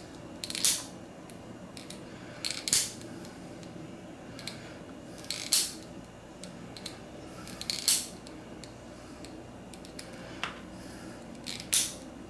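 A disposable lighter's spark wheel being flicked again and again: a short scratchy click about half a dozen times, a second or more apart.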